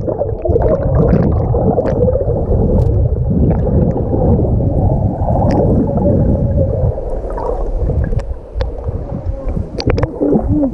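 Deep, muffled rumble of churning sea water and bubbles, heard with the microphone underwater, with scattered sharp clicks and ticks.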